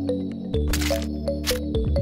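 Background music with a held bass line, a short repeating melody and a few sharp percussion hits.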